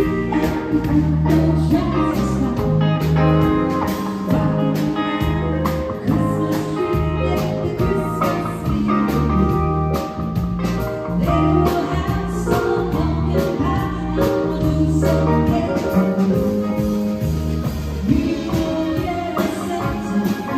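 Live band playing a song with a singer: a steady drum beat, a strong bass line and keyboard, continuous throughout.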